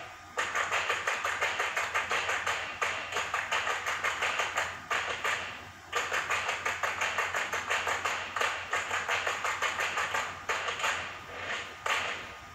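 A TV commercial's soundtrack playing through the television speaker: a fast, even run of sharp clicks like typing or a ticking beat. It breaks off briefly about six seconds in and again near ten and a half.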